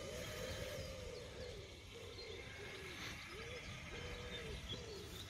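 Faint whine of an OSET electric kids' motorbike motor, rising and falling in pitch as the throttle opens and closes, with faint bird chirps.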